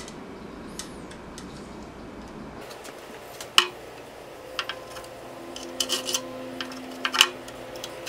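Rim brake caliper being handled and fitted at the rear brake bridge of a carbon road bike frame: sharp metallic clicks and clinks, loudest about three and a half seconds in and again just after seven seconds. Before that there is faint rubbing and ticking of a small tool against the frame.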